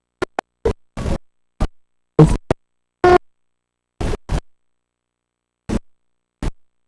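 Choppy, broken-up home-video soundtrack: brief snippets of voices and noise, each a fraction of a second long, cut off by stretches of dead silence, the audio dropping out over and over.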